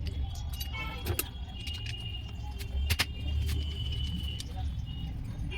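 Mahindra Bolero Neo engine running at idle with a steady low rumble. Sharp metallic clicks and clinks sound over it, and a thin high whine holds for a couple of seconds in the middle.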